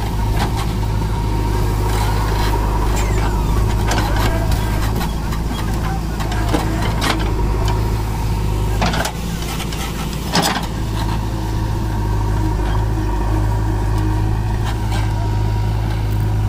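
JCB 3DX backhoe loader's diesel engine running steadily under digging and loading work, with two sharp knocks of the bucket a little past the middle.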